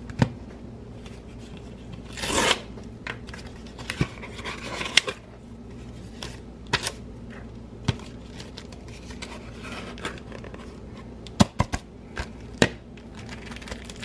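A cardboard box and plastic packaging being opened by hand: scattered sharp clicks and taps with a few short rustles as the box is pulled open and the plastic sleeve is handled.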